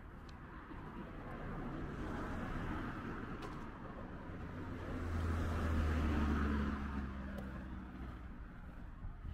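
Two cars passing on a street one after the other: tyre noise and engine hum swell and fade. The second, passing around the middle, is the louder.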